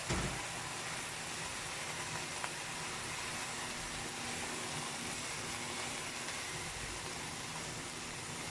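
Petchay (bok choy) sizzling steadily in a pan as it is stir-fried, an even hiss, with a low thump just after the start and a faint click a couple of seconds in.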